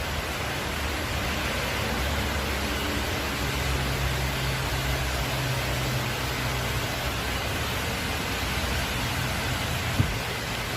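Heavy storm downpour: a steady rushing hiss of rain and water. A low hum sits under it for a few seconds in the middle, and there is one short knock near the end.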